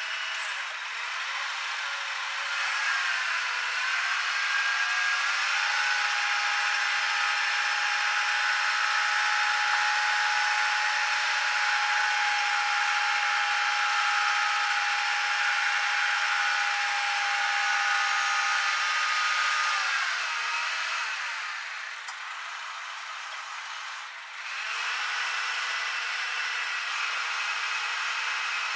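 Forklift hydraulic pump whining under load as the roll clamp attachment rotates. The pitch rises about three seconds in, holds steady, and drops away about twenty seconds in. After a short quieter stretch, a lower steady whine returns near the end as the clamp arms move.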